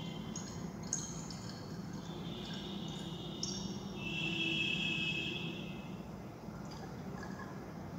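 Distilled water poured from a plastic beaker into the narrow neck of a 100 ml volumetric flask, trickling and splashing as the flask fills. It is loudest about four to six seconds in, over a steady low hum.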